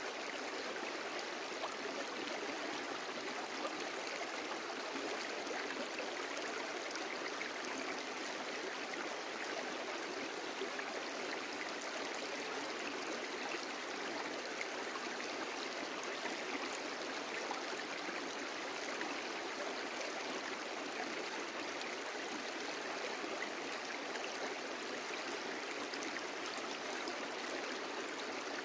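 A brook running steadily: an even, unbroken rush and babble of flowing water.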